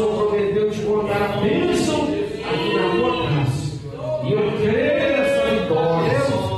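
A church congregation singing together, the voices holding and sliding between sustained notes.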